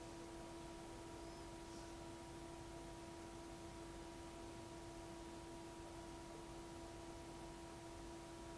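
Faint steady hum made of a few held tones over a low hiss, unchanging throughout.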